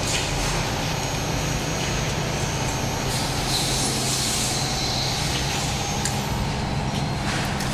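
Stick-on labeling machine running: a steady mechanical hum with a short hiss about halfway through and a few sharp clicks.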